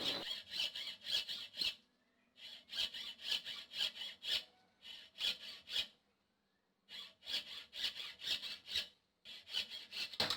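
Hand saw cutting through a wooden pool cue, in back-and-forth strokes about two a second, in runs with short pauses between them.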